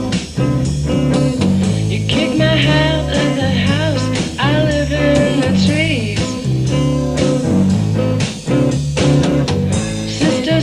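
Blues-rock music: an electric guitar plays bent lead notes over a steady, repeating bass line.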